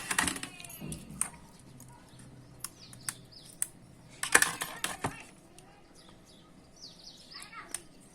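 Clicks and short scrapes of a small IC 4440 amplifier chip being handled and pushed pin-first into the holes of a circuit board, the loudest scrape about halfway through. A few brief high chirps come in near the start and near the end.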